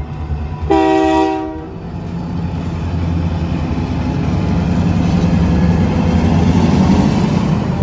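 Diesel freight locomotives passing a grade crossing. A short blast of the air horn comes about a second in, then the engines' low rumble grows louder as the lead units go by.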